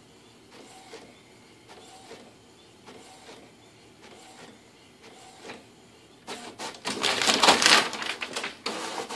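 Inkjet printer printing, its print head making a faint pass about once a second. A little over six seconds in, a loud rustling and clattering of paper lasts about three seconds as the cat grabs the printed sheet from the output tray.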